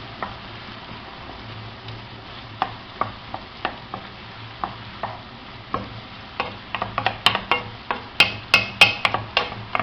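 Onion and pepper frying in oil in a pan with a steady low sizzle, while a utensil stirs and taps against the pan. The taps come faster and sharper in the last few seconds.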